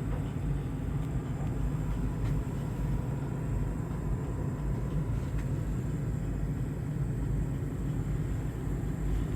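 Electric gooseneck kettle heating water on its base: a steady low rumble of the water warming toward the boil.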